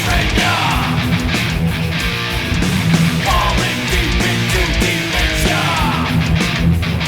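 Heavy-metal music: a distorted electric guitar through Amplitube 4's high-gain amp simulation plays a chugging riff over drums, with short pitch slides in a higher guitar line.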